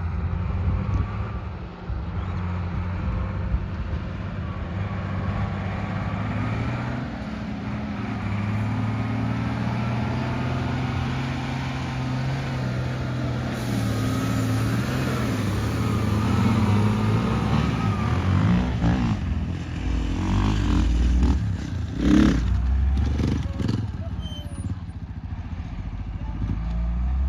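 Off-road vehicle's engine running under changing load, its pitch rising and falling as it drives over rough ground, with several knocks and clatters near the end.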